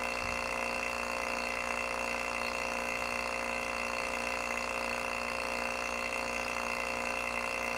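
J/B two-stage vacuum pump running steadily under deep vacuum, pulled down to about 20 microns: an even, unchanging motor hum.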